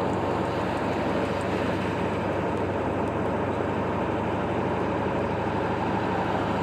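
Diesel pickup truck with an old 7.3-litre engine driving steadily while towing a heavy load: an even engine hum and road noise with no change in pace.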